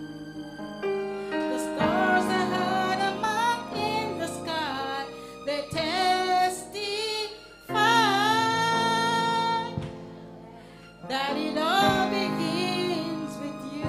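A woman singing a slow gospel song through a microphone over sustained keyboard chords. About eight seconds in she holds a long note with vibrato, then the line resumes after a short pause.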